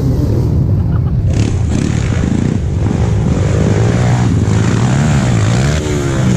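Off-road dirt bike engines revving hard, the pitch rising and falling again and again as the throttle is worked on a steep hill climb.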